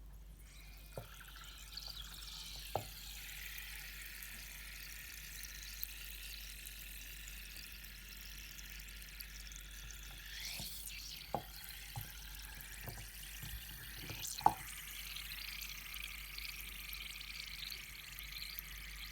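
Lumps of chalk being handled: a faint, steady, gritty hiss with a few sharp clicks and taps, the sharpest about three-quarters of the way through.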